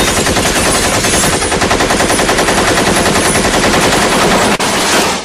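A long, continuous burst of rapid automatic gunfire, a machine-gun sound effect, that cuts off about five seconds in.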